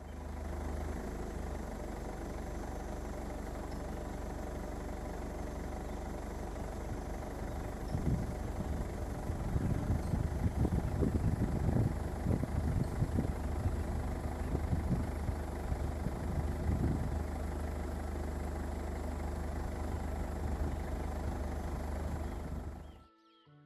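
An engine running steadily with a low hum, with louder, uneven low rumbles for several seconds through the middle.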